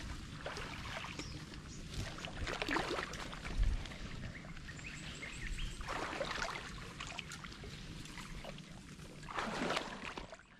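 Water sloshing and splashing as people wade thigh-deep through a flooded swamp channel, legs pushing through the water and brushing reeds and grass, with a few louder splashy surges and a dull thump about three and a half seconds in.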